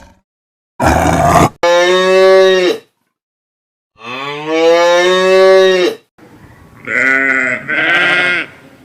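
Cow mooing: a short noisy burst about a second in, then two long, drawn-out moos, followed by two shorter, brighter calls near the end.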